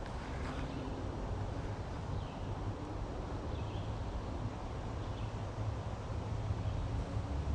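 Outdoor woodland ambience: a steady low rumble, with faint short bird chirps a few times, spaced a second or so apart.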